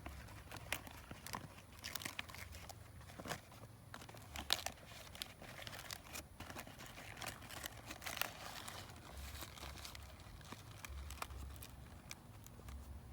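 Banana leaves crinkling and tearing as they are handled, with irregular crackles.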